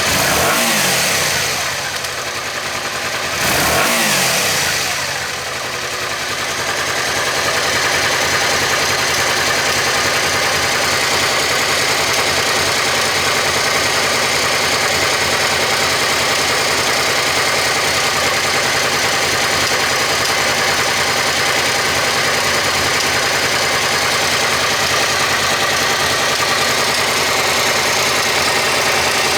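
Suzuki SV400's 90-degree V-twin engine, blipped twice in the first few seconds and settling back each time, then idling steadily.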